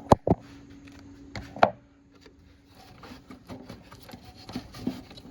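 Sharp plastic clicks and taps from hands working the tail-light assembly and bulbs: two close together near the start, a louder one about a second and a half in, then softer scattered ticking.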